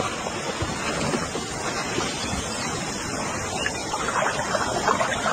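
Vultures squabbling at a carcass: a dense, steady rustle.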